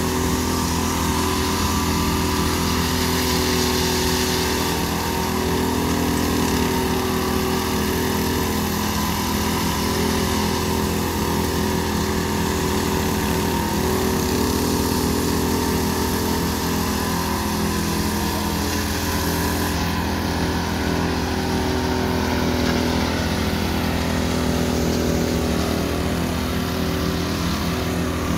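Walk-behind concrete power trowel's small engine running steadily as its rotating blades finish a freshly poured concrete slab.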